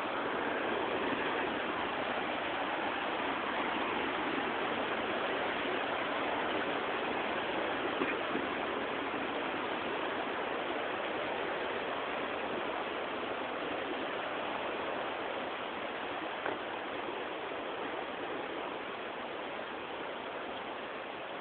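Steady rush of a fast-flowing river, easing off a little near the end, with a brief knock about eight seconds in.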